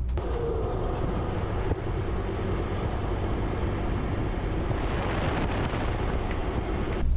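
Steady road and wind noise of a vehicle driving at speed, swelling a little around the middle.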